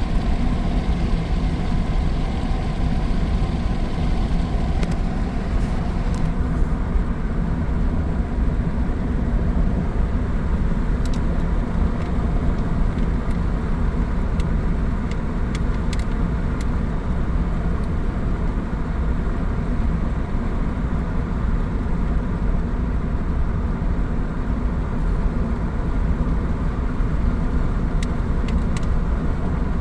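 Steady road and engine noise of a vehicle driving at speed, heard from inside the cabin: a continuous low rumble with no change in pace.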